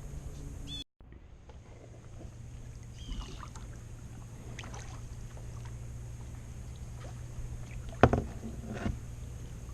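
Kayak being paddled, with light splashes and small clicks of the paddle, over a steady low rumble. Near the end the paddle knocks sharply against the kayak hull once, then a second, lighter knock follows.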